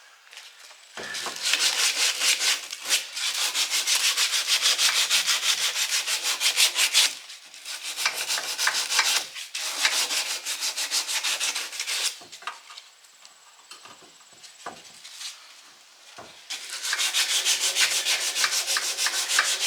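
Sanding the painted metal end of a yard cart axle to take off paint buildup so the wheel will slide on. It is a rapid back-and-forth scrubbing that comes in several spells with short breaks, goes quieter for a few seconds, then starts again near the end.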